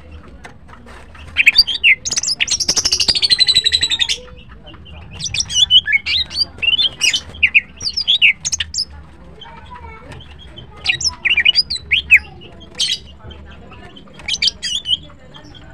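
Female greater green leafbird (cucak ijo) singing: bursts of high chirps and whistled notes, with a fast rattling trill about two and a half seconds in.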